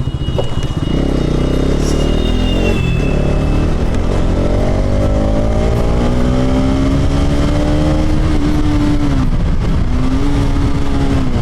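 Bajaj Pulsar RS200's single-cylinder engine pulling hard under way, its note rising steadily through a gear. Near the end the pitch drops sharply at a gear change and climbs again, over steady wind and road rumble.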